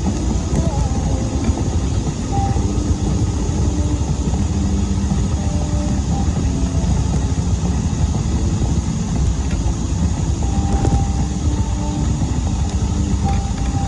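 Invacare TDX SP2 power wheelchair driving over asphalt: a steady rolling rumble from its tyres, mixed with wind on the microphone.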